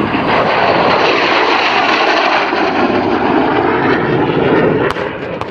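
Turbojet of a MiG-17 jet fighter flying past: a loud, steady rush of jet noise that eases off slightly near the end.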